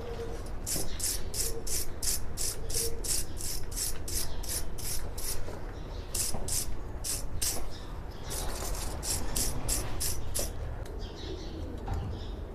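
Wire brush scrubbing a rusty cartridge bottom bracket in quick back-and-forth strokes, about three a second, in three runs with short breaks, scraping off rust and old grease.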